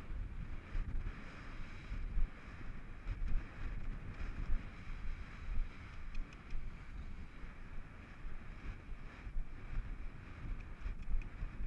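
Wind buffeting a rider-mounted camera's microphone as the horse moves at speed across open grass, an irregular rushing and rumbling with a few faint clicks.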